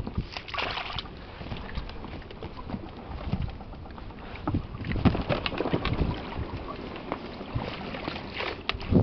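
Scattered knocks, rubs and clatter of gear handled in an inflatable boat, as spinning rods are gathered up against the rubber tubes and floor. A cluster of heavier thumps comes about five to six seconds in.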